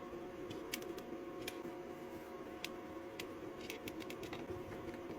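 Scattered light clicks and ticks of a screwdriver driving screws into a massage gun's plastic housing, over a faint steady hum.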